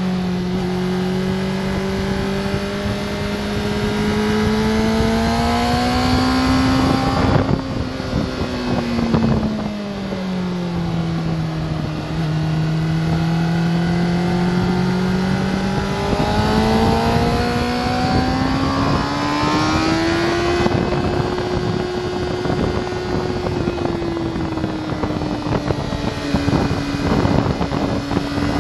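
Sport motorcycle engine heard onboard at speed on a race track, with wind rushing over the microphone. The engine note falls as the bike slows for a corner about eight seconds in, then climbs steadily as it accelerates out, levelling off near the end.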